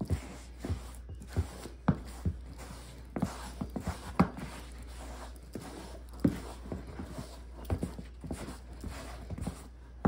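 A leather cowboy boot being handled on a wood-grain shelf top while it is buffed with a sheepskin applicator pad: irregular knocks of the sole and heel against the shelf, with soft rubbing between them.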